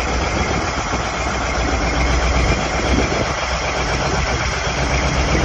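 CAT 992G wheel loader's large V8 diesel engine idling steadily, a deep even drone from its twin exhaust stacks.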